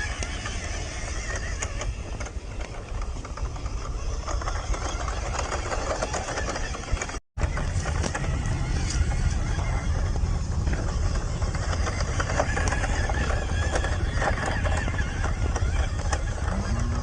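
Electric motor and gears of a WPL C14 1/16-scale RC truck whining steadily as it drives over rough ground, with small clicks and crunches from the tyres. The sound drops out for a moment about seven seconds in.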